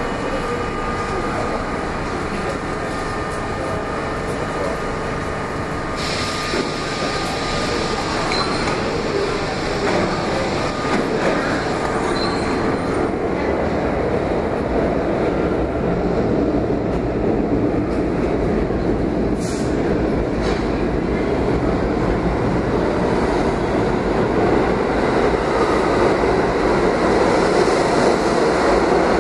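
New York City Subway R32 train standing at the platform with a steady hum and hiss, then starting off and gathering speed, its running noise growing louder over the last third, with a couple of short wheel squeals.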